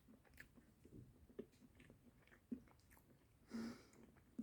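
Faint chewing: a person eating soft plant-based salmon, with small scattered mouth clicks and one brief louder sound about three and a half seconds in.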